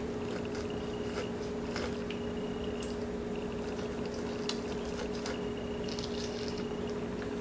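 Knife cutting raw chicken thigh meat away from the bone, with faint wet squishing and small clicks. A steady low hum runs underneath.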